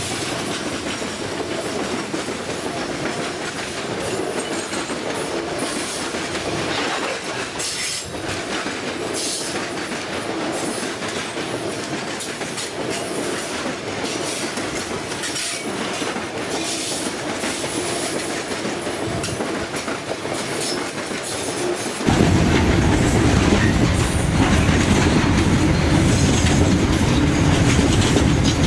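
Freight wagons rolling past close by, their wheels clattering over the rail joints. About 22 seconds in, the sound cuts abruptly to a louder, deeper steady rumble of a freight train heard at a distance.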